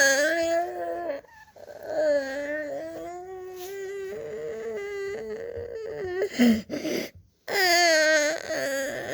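A young child with acute laryngitis (croup) crying in three long wailing cries, the middle one held for about four seconds, with short breaths drawn between them.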